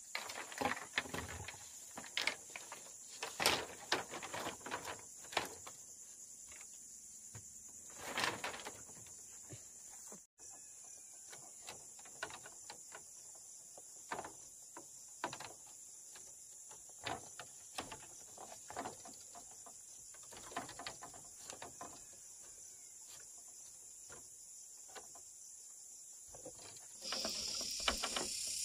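Steady high-pitched chorus of insects such as crickets, with irregular knocks and clicks throughout, most of them in the first few seconds and around eight seconds in. Near the end the insect sound grows louder and fuller.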